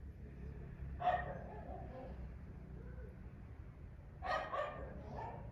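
A dog barking: one bark about a second in, then two quick barks near the end.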